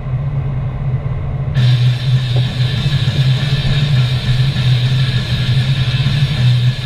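Car driving at speed, heard from inside the cabin: a steady low engine and road drone, with music over it. The music drops out for about the first second and a half, then comes back abruptly.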